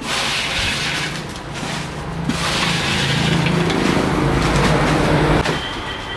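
Dry fried banana chips crackling and rustling as they are scooped by hand out of an aluminium pot into a plastic bag. Under it a low drone builds through the middle and stops abruptly about five and a half seconds in.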